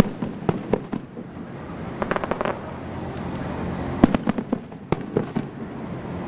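Aerial fireworks shells bursting: a string of sharp bangs and pops, with a cluster of reports about two seconds in and the loudest bang about four seconds in.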